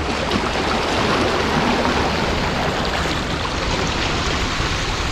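Small sea waves washing and splashing steadily against the rocks of a breakwater.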